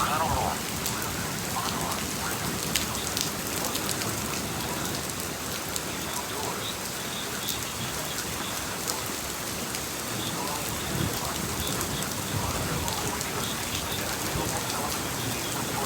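Steady rain falling hard on surfaces during a thunderstorm, with scattered sharp ticks of drops striking close by.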